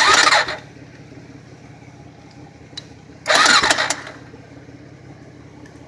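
Honda 400EX ATV engine being tried: two short, loud start attempts about three seconds apart, each under a second, over a steady low hum. The engine does not catch and run.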